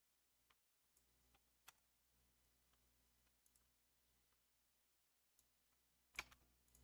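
Near silence broken by a few faint, scattered clicks of computer input at a desk, with a quick cluster of louder clicks near the end.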